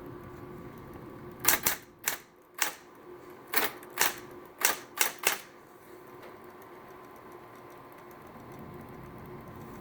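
SCM Smith Corona Coronet Automatic 12 electric typewriter typing: about nine sharp key strikes in quick, uneven succession, starting about a second and a half in and ending about four seconds later, over a steady motor hum.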